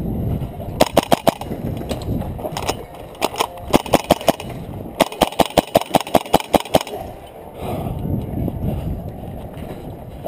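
KWA AKG-74SU airsoft gas-blowback rifle firing in several quick strings of sharp cracks. The longest is a run of about a dozen shots at six or seven a second, a little past the middle.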